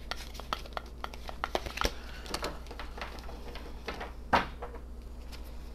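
A deck of tarot cards being shuffled by hand: a run of quick light clicks and flicks of cards against each other, with a short rustle about two seconds in and one louder card snap about four seconds in.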